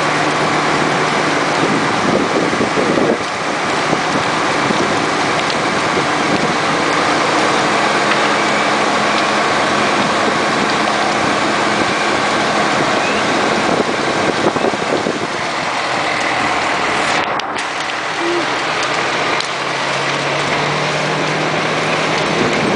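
A fire engine's motor and pump run with a steady low drone under a loud, continuous rushing hiss. The hiss briefly loses its top end about three-quarters of the way through.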